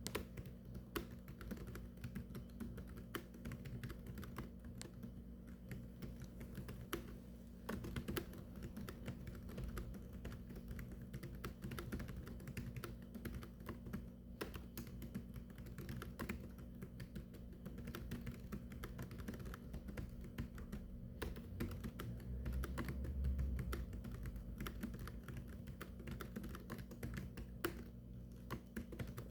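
Continuous typing on a keyboard: quick, irregular keystroke clicks, over a steady low hum.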